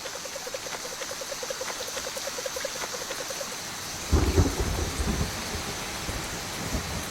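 Steady rain falling, with a low rumble of thunder that breaks in suddenly about four seconds in. For the first three and a half seconds a toad's steady pulsed trill runs under the rain.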